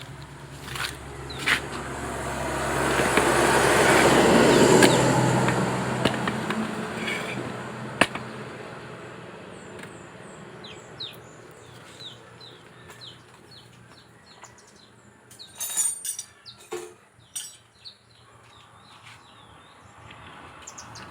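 A passing vehicle, rising to its loudest about four to five seconds in and then fading, over a steady low hum. After it, small birds chirp, with a few sharp clicks and knocks near the end.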